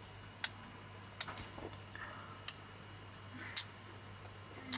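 About five light, sharp clicks of small metal thermostat parts, the bimetal discs, being handled and set against each other, spaced roughly a second apart; one past the middle is followed by a brief metallic ring.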